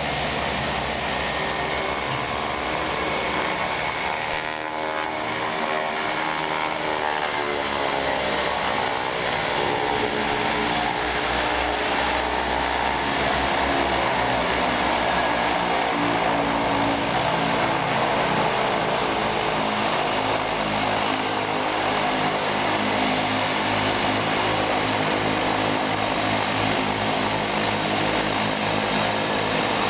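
Turboprop engines of a de Havilland Canada DHC-6 Twin Otter running on the ground: a steady propeller drone under a high turbine whine. The pitch bends down and back up about five to eight seconds in as the engine power changes.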